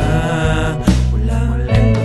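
Instrumental passage of a pop song: deep bass and sustained chords with no sung words, and drum hits about a second in and near the end.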